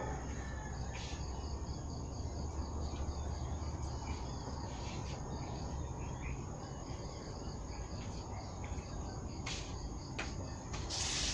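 Insects chirping steadily: a continuous high trill with a rapidly pulsing chirp just below it, over a low background rumble. A short hiss near the end.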